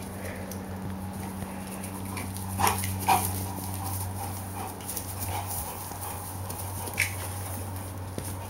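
Black Labrador retriever making a few short, sharp sounds while wrestling in play, twice close together about two and a half and three seconds in and once more about seven seconds in.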